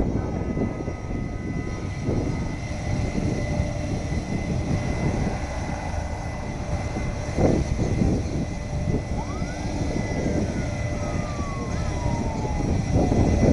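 Airliner's engines running steadily: a low rumble with a high, steady whine over it.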